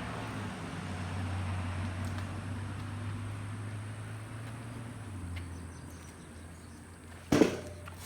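Select 4221 double-cut sawmill running with a steady low mechanical hum that eases off slightly about five seconds in. A single sharp knock comes near the end.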